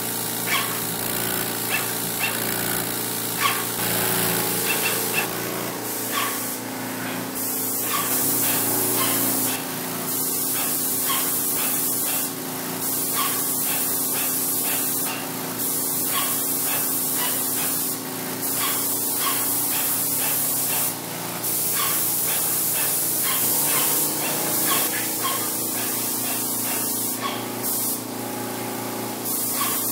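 Titan 440 Multi Finish air-assisted airless paint sprayer spraying latex primer: a loud, steady spray hiss that breaks off briefly again and again between passes, over a steady hum.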